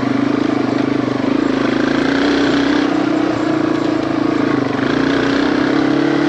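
Yamaha TW200's single-cylinder four-stroke engine running steadily under riding load on a trail. Its pitch wavers with the throttle and rises a little near the end. The exhaust note carries the extra loudness of baffles the rider says are wearing out.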